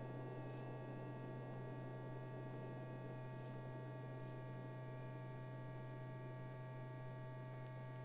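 Steady low electrical hum with faint hiss and a few thin steady tones, unchanging throughout: the background noise of an old film soundtrack between narration lines.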